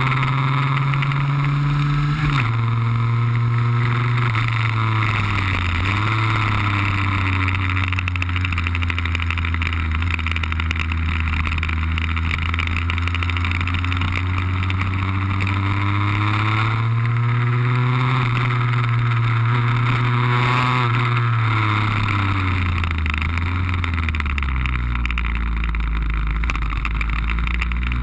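Lambretta cut-down scooter's two-stroke RB20 engine running at speed. The revs drop sharply about two seconds in, build slowly to a peak past the middle, then fall away near the end, with a steady rushing noise of wind over the camera microphone.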